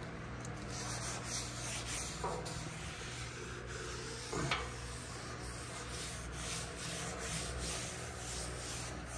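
Paper towel held in tongs rubbing seasoning oil across a hot steel griddle top in quick back-and-forth strokes, with a steady low hum underneath. A short falling squeak comes about halfway through.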